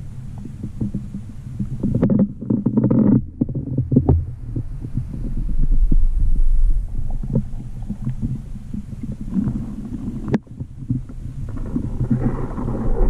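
Muffled underwater rumbling and knocking from water moving around a submerged camera, with many small clicks and one sharp click about ten seconds in.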